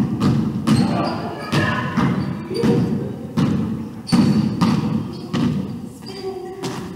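Basketball dribbled on a hardwood gym floor, about ten bounces at an even pace, each thud ringing out in the large hall.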